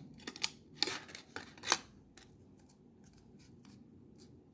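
Faint, crisp clicks and crinkles of a thin aluminium yogurt-lid cap being worked by hand. There are several sharp ones in the first two seconds, then only scattered light ticks.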